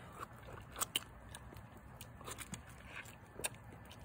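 A person biting and sucking at a half grapefruit: faint wet mouth sounds with a few scattered sharp clicks.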